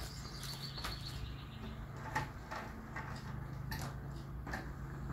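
Light clicks and rustling from gloved hands handling plastic paint cups, a few separate ticks over a steady low hum.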